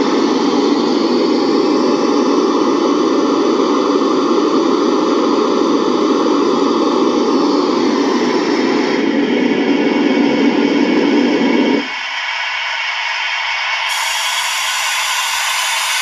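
Loud, steady hiss of noise like radio static, its character shifting in steps: the low, full part cuts off suddenly about twelve seconds in, leaving a thinner hiss that turns brighter a couple of seconds later.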